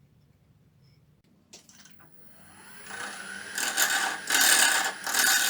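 Wood lathe switched on with a click, its motor whine rising as it spins up, then loud scraping of a tool or abrasive against the spinning itin wood in several surging passes.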